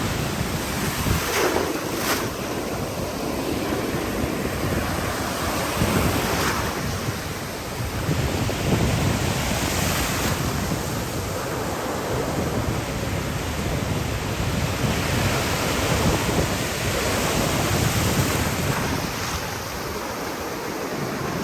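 Ocean surf with waves breaking and washing in, under steady wind buffeting the phone's microphone.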